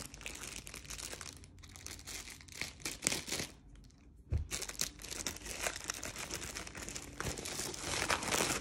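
Clear plastic wrapping crinkling as it is torn open and pulled off a rolled diamond-painting canvas. The crinkling briefly stops about three and a half seconds in, followed by a thump.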